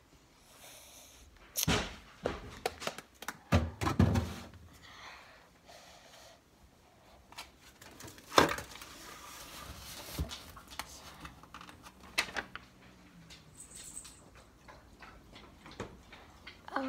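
Scattered knocks, clicks and thumps of objects being handled and set down, the loudest a single sharp knock about eight seconds in.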